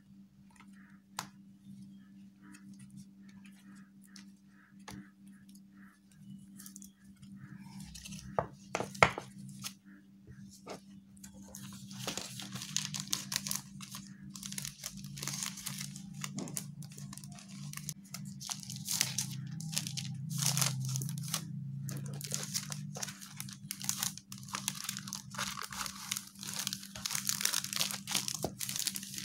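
Clear plastic self-seal bag crinkling and rustling as a stack of printed paper cards is handled and slid into it. The first several seconds hold only light paper handling and a few taps around eight to nine seconds in; the crinkling becomes dense from about twelve seconds on, over a steady low hum.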